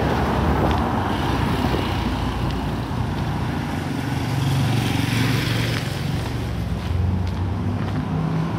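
Street traffic: a car drives close past at the start, then a motorcycle engine hum builds and passes about halfway through, over steady road noise.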